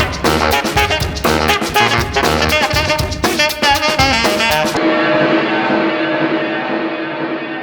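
Upbeat jazzy band music with brass and drums, ending about five seconds in on a held final chord that slowly fades.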